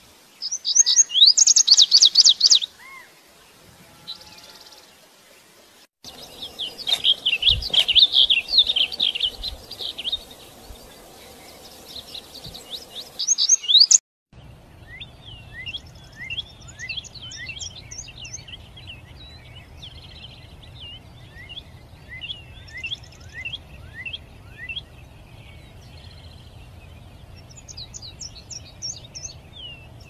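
Songbirds singing: fast bursts of high chirps and warbled phrases, in clips that break off abruptly about six and fourteen seconds in. From about fourteen seconds on comes a quieter run of short, down-slurred chirps over a low steady hum.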